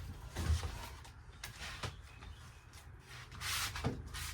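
A removed piece of camper wall panelling being handled and set down: a dull thump about half a second in, a few light knocks, and a short scrape of it rubbing along a surface near the end.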